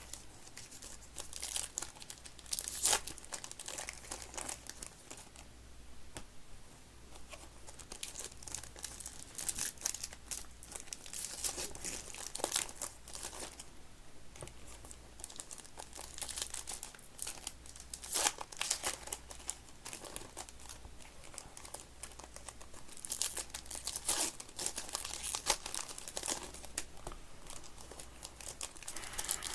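Wrappers of Topps Stadium Club trading card packs being torn open and crinkled, in irregular crackling bursts with short pauses between.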